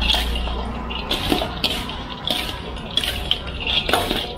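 Crispy fried pork crackling crunching and rustling in a run of irregular sharp crackles, the sound of how crisp it is.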